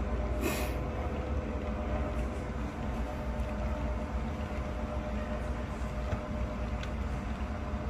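Model train running: a steady low rumble with a faint hum as a string of model hopper cars rolls slowly along the track. A short hiss sounds about half a second in.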